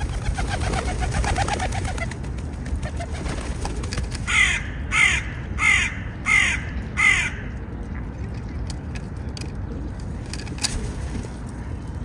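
A crow cawing five times in quick succession, each harsh caw falling in pitch. Small birds twitter busily in the first couple of seconds, over a steady low rumble.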